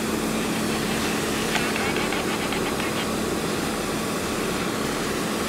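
Steady rushing hiss of water spraying from a hose, fed by a motor pump, with a steady pump hum underneath that cuts off near the end.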